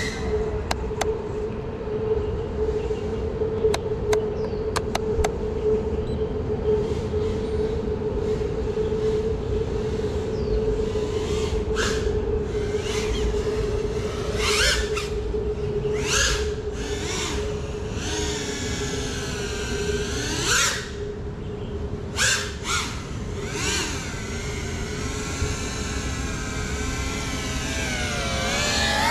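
GEPRC Cinelog 35 FPV drone's motors and propellers humming steadily, then from about halfway surging in short bursts with the pitch sweeping up and down as the throttle changes, over a rumble of wind noise. A few faint clicks in the first few seconds.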